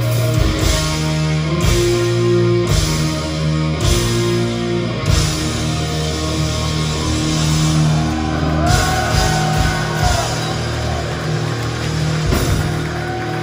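Live rock band playing loud through the venue PA, heard from inside the crowd: heavy electric guitar and bass with cymbal crashes about once a second. About eight seconds in, a higher sliding melody line comes in over the top.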